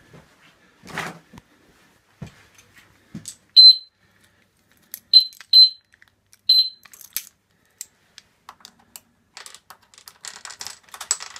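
Four short, high-pitched electronic beeps, then keys jangling as a key goes into a motorcycle's ignition switch near the end.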